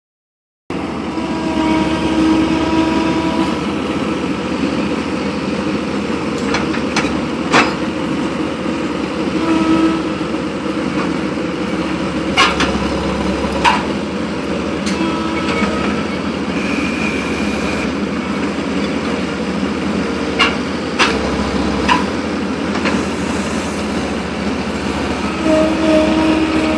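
Skid steer engine running steadily under work, with a whine that rises in and drops out several times as the grapple is worked. About a dozen sharp clanks and knocks come through it as the hay grapple handles the bales.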